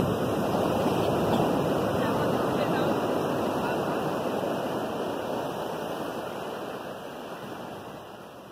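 Sea surf washing up the beach, a steady rush that is loudest at first and slowly fades over the second half.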